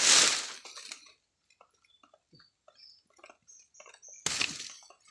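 Dry banana leaves and trash rustling and crackling loudly underfoot for about the first second, then faint scattered ticks and a few short high chirps. Another brief rustle comes near the end.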